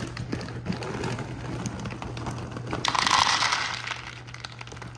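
Pedigree dry dog kibble poured from its bag into a plastic bowl: scattered clicks and bag crinkling, then a loud rush of pellets clattering into the bowl about three seconds in.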